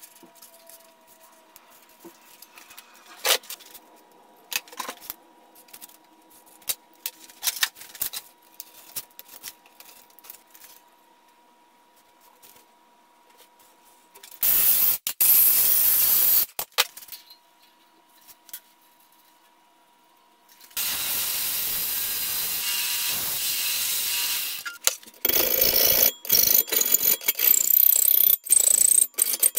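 Small clicks and rustles of hand work, then a loud hissing stretch of about two seconds and a steady hiss of about four seconds from an unseen metal-cutting step. Near the end comes the loudest part: a file rasping in quick strokes across a small steel bracket blank clamped in a vise.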